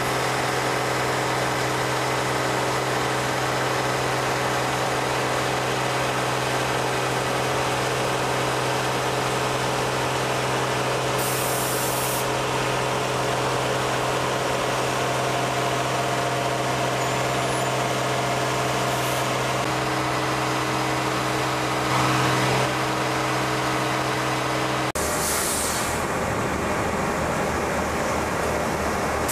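Steady, loud machinery drone of a dry batch concrete plant running, with a low hum under a dense wash of noise. Short bursts of air hiss cut in about 11 seconds in and again about 25 seconds in, where the drone changes, and once more at the very end.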